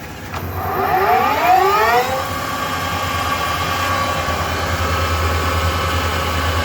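Harrison M390 geared-head engine lathe spinning up to 1500 RPM: a whine rises in pitch for about two seconds, then the lathe runs steadily at speed, very quiet.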